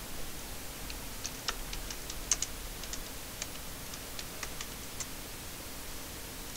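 Computer keyboard typing: a short run of about seventeen keystrokes, starting about a second in and stopping about five seconds in, over a steady background hiss.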